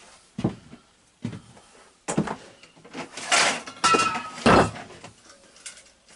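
Metal tools clanking and clattering as someone rummages through a toolbox, a run of irregular knocks with a short metallic ring about four seconds in and the loudest clank just after.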